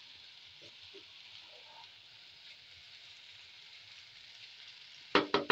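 Spaghetti stir fry frying in a pan: a faint, steady sizzle. Near the end, a quick couple of sharp knocks.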